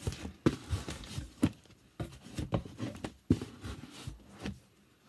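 Vinyl records in their sleeves being lifted and shuffled in a cardboard box: an irregular run of sharp knocks and clicks with rustling between them, dying away near the end.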